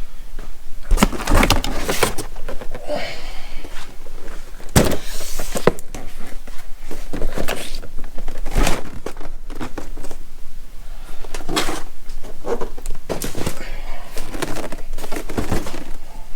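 Boxed power tools being lifted out of a shipping box and set down: irregular knocks, thumps and cardboard scraping and rustling.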